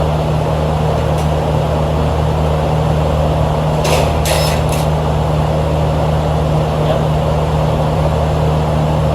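Steady low mechanical hum with an even rushing noise over it, from machinery running continuously. A few short scraping bursts come about four seconds in.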